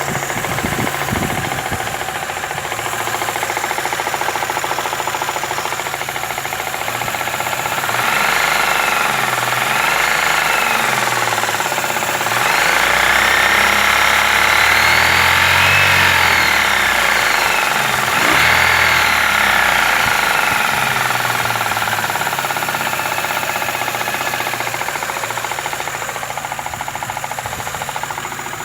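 Daewoo Lanos 1.5-litre engine running with a knock, blipped twice about a third of the way in, then held at raised revs for several seconds around the middle and revved once more before settling back to idle. The cause of the knock is unknown to the owner.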